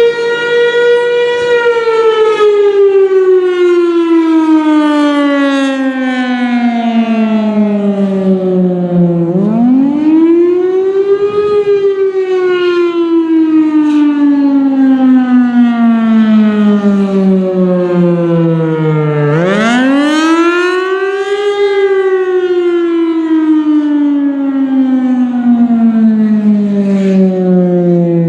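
Federal Signal Thunderbolt 1000 outdoor warning siren sounding the attack signal: a loud, rising-and-falling wail. Its pitch sweeps quickly up over about two seconds, then slides slowly down for about eight, with the quick rises coming twice.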